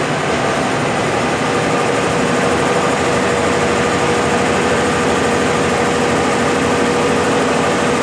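Brastemp BWL11 11 kg washing machine in its final spin cycle, spinning a load of rugs and running steadily at speed; a steady whine comes in about a second and a half in.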